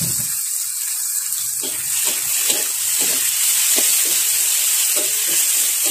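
Julienned carrot and green beans sizzling in a hot wok with a steady hiss. From about a second and a half in, a metal spatula stirs and scrapes them against the wok, about two strokes a second.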